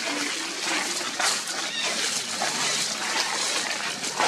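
Macaques scrambling over dry leaf litter, a dense rustling with short scuffs and brief animal calls.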